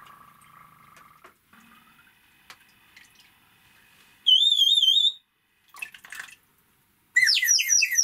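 Water-filled bird whistle blown in two bursts, giving a high warbling trill like birdsong: the water inside makes the tone waver. The first burst, about four seconds in, is a steady wavering trill. The second, near the end, is a run of quick falling chirps.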